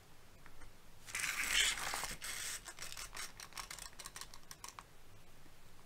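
Tape measure being pulled out and laid across a plastic-covered diamond painting canvas: a scraping rustle about a second in, then a run of small clicks and ticks as it is handled into place.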